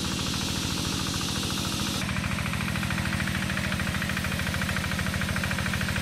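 Engine of a two-wheel hand tractor ploughing a rice paddy, running steadily with a fast, regular chugging. Its tone shifts about two seconds in.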